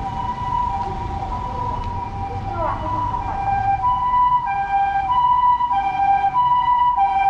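Japanese ambulance's two-tone siren, alternating high and low notes at a steady pace of about one high-low cycle every second and a quarter. It grows louder in the second half as it approaches.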